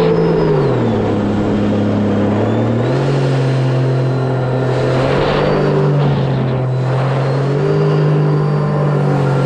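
The supercharged Rotax three-cylinder engine of a 2018 Sea-Doo RXP-X 300 jet ski, fitted with a free-flow exhaust, running hard under way. The engine note drops about a second in, climbs again about three seconds in, and rises once more near eight seconds.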